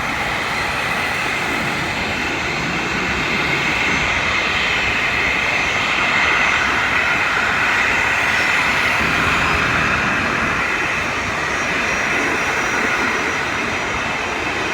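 Boeing 737 jet engines running, a loud steady rush of engine noise with a faint high whine, swelling slightly in the middle.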